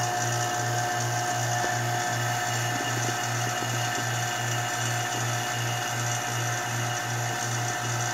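Vacuum pump running steadily, pulling vacuum on a resin infusion bag to draw epoxy through the carbon fiber layup. A low hum pulses about two to three times a second under a steady whine.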